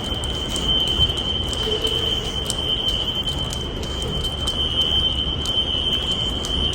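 Building fire alarm sounding a steady, high-pitched continuous tone over a low background rumble, with faint irregular ticks. The alarm was set off by construction dust: a false alarm.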